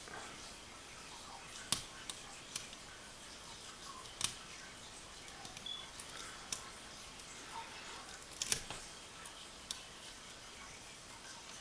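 Irregular small metallic clicks and ticks of a diamond lock pick working the pins of a pin-tumbler lock under tension, with a handful of sharper clicks standing out.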